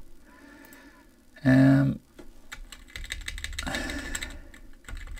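Computer keyboard and mouse clicking, a quick run of light clicks from about halfway in, as a Reflect command is confirmed in drawing software. A brief voiced sound, like a short hum, comes about a second and a half in.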